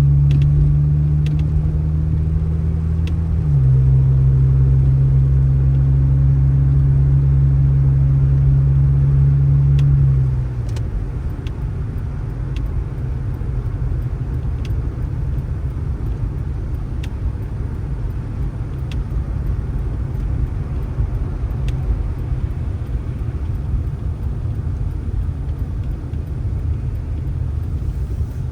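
Motor vehicle engine running with a steady hum that dips slightly in pitch about three seconds in. About ten seconds in, the hum gives way to a steady low rumble with a few faint ticks.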